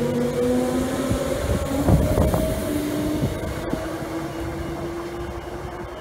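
Transperth A-series electric multiple unit pulling away: traction motors whining in a few steady tones that climb slowly in pitch as it gathers speed, with a few wheel knocks over the track about two seconds in. The sound fades as the train recedes.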